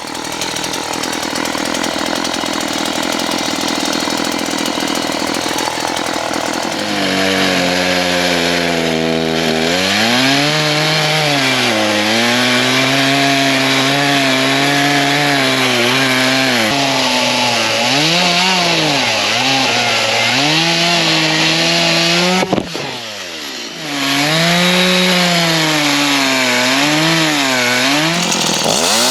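Gas chainsaw running at high revs while cutting wood. Its engine pitch rises and falls again and again as the load and throttle change. About two-thirds through it drops off briefly, then revs back up.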